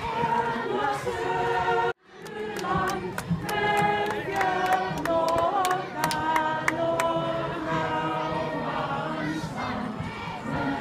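A choir singing together unaccompanied while marching. The sound cuts out for an instant about two seconds in, and a run of sharp clicks sounds through the middle.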